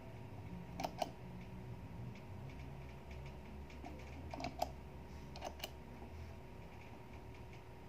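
Metal footswitches on a MIDI foot controller pressed by finger: three sharp double clicks, each a press and release, about a second in, at about four and a half seconds, and again a second later. A faint low hum sits underneath.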